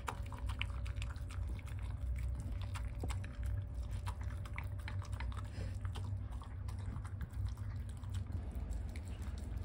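A dog eating soft, wet home-cooked food from a bowl: quick, wet licking and smacking clicks, over a low steady hum.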